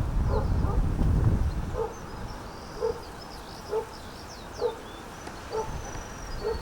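A dog barking over and over, about one bark a second, with wind buffeting the microphone in the first second or so.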